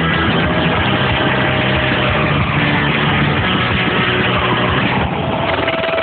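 A loud, steady, engine-like roar with a low hum running through it.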